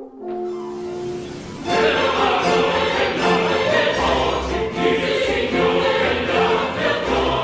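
Baroque choral music: a few quieter held orchestral chords, then about two seconds in the chorus and orchestra enter together loudly and sing on at full volume.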